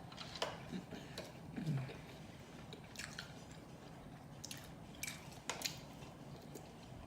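Close-miked chewing with wet smacking and clicking mouth noises, scattered irregularly every second or so, with a short low 'mm' under two seconds in.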